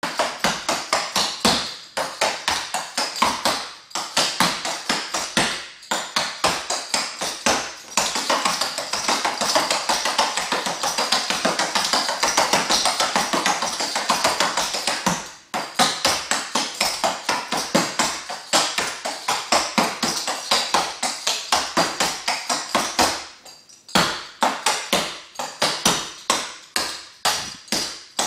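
Clogging shoes with metal taps striking a hard floor in fast rhythmic runs of steps, with brief pauses about fifteen seconds in and again about twenty-three seconds in.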